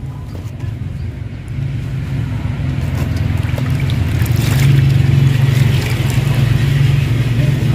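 Low, steady engine drone from a passing motor vehicle. It grows louder over the first few seconds and eases slightly near the end.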